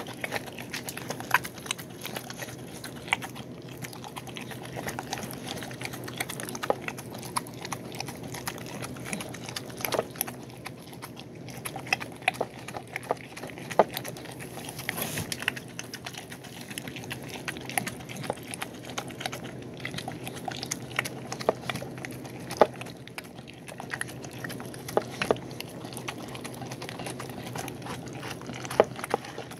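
A dog eating rice and chicken mush from a bowl: steady chewing with many irregular sharp clicks throughout.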